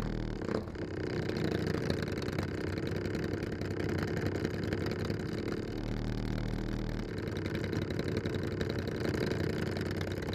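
Several motorcycle engines idling and running at walking pace in slow, stop-and-go traffic, a dense, uneven engine sound.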